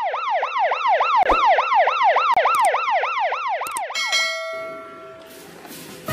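Police car siren in a fast yelp, its pitch sweeping up and down about three to four times a second. It cuts off about four seconds in, and its tone rings on briefly and fades.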